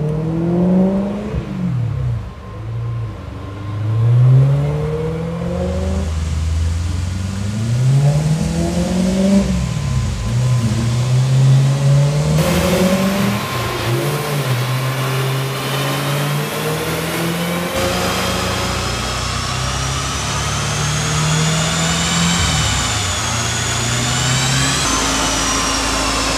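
A 2008 BMW M3's V8 engine through an Akrapovic titanium exhaust, revved up and down over and over. From about eighteen seconds in it holds higher, steadier revs, with a high whine rising and falling above it.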